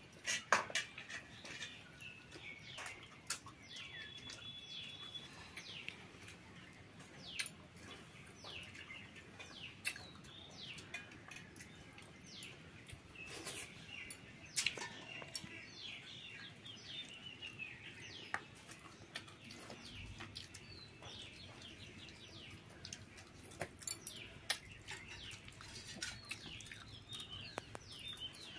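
Small birds chirping on and off throughout, many short falling chirps, with scattered light clicks and taps of fingers against steel plates as food is eaten by hand.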